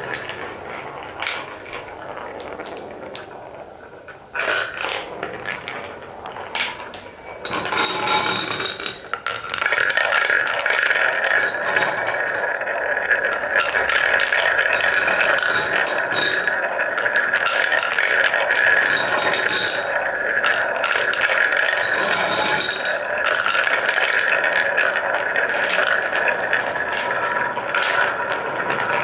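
Wooden balls rolling and clicking along a wooden marble-run track. From about ten seconds in comes a steady, dense rolling sound as several balls circle in a wooden funnel bowl.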